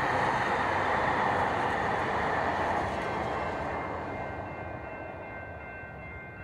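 A train passing close by on the rails: a loud rushing rumble for the first three seconds that then fades as the train moves away, leaving a few steady high tones.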